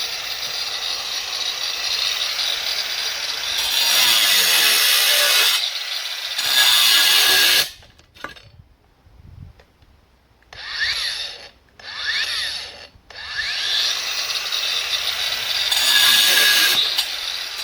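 Makita GA023G 40 V brushless cordless angle grinder cutting masonry, its note dropping as it slows under load. It stops suddenly about eight seconds in, is run up twice in short bursts, then bites into the cut again for the rest of the time.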